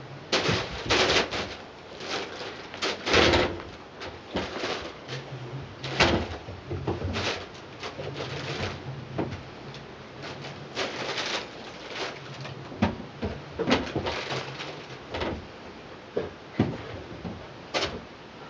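A Belgian Malinois puppy scrambling about among fabric cat toys and a play tunnel: irregular rustling, scuffing and light knocks, a dozen or so bursts of varying loudness.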